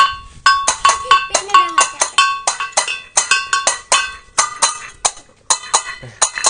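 Small bossed gong struck rapidly with a wooden stick, about four or five ringing metallic strikes a second in a slightly uneven rhythm, a little softer near the end.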